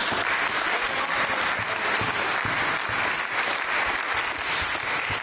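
Spectators applauding steadily as a wrestling bout ends.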